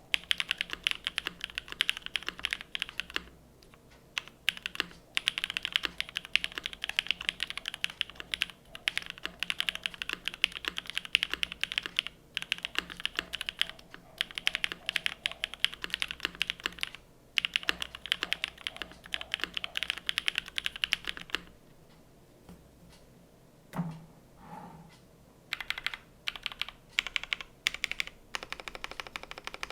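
Typing on a Cloudline TKL custom mechanical keyboard with Frankenswitch BCP switches, a polypropylene plate, O-ring mounting and GMK keycaps. Fast runs of keystrokes are broken by short pauses. About 21 seconds in, the typing stops for a few seconds, with one brief low sound in the break, then starts again.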